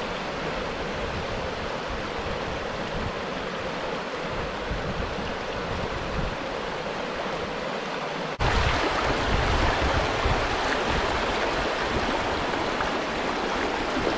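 Shallow river rushing over rocks in riffles, a steady rushing of water that becomes louder about eight seconds in.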